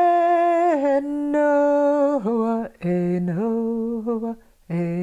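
A single voice singing a Wiyot chant unaccompanied. Long held notes step down in pitch, in short phrases with two brief breaks for breath.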